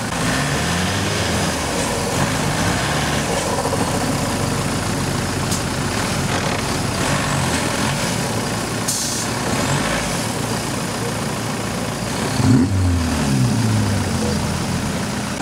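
Off-road 4x4's engine running under load as it climbs a steep muddy slope. About twelve seconds in it revs up sharply and then drops back.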